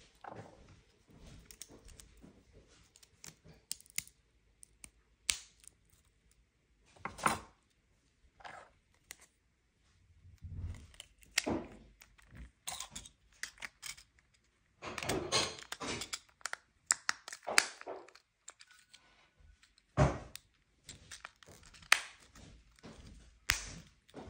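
Scattered clicks, taps and light scrapes of hands working a key fob's plastic shell and a small screwdriver against a wooden table, as the fob case is fitted back together after a battery change, with a longer stretch of rustling about two-thirds of the way through.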